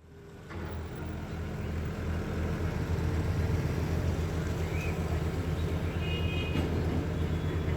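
Steady low engine drone, fading in at the start, with a short high beep about six seconds in.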